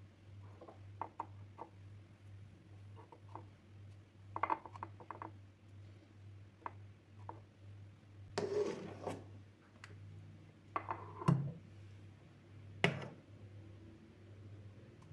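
Small handling sounds: light clicks and taps, a rustle about eight seconds in, and two sharper knocks later on, over a steady low hum.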